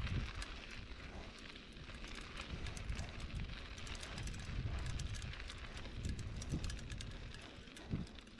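Mountain bike rolling along a path: tyre noise with a steady crackle of many small clicks and rattles from the bike and the path surface, mixed with low gusts of wind on the microphone.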